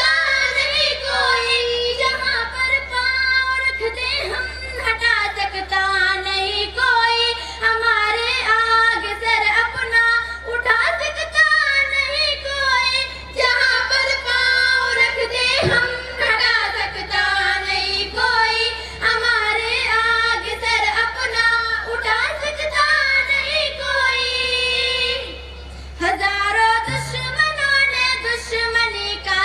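A young female voice singing a patriotic Hindi-Urdu tarana solo in long melodic phrases. There is a brief pause between lines near the end.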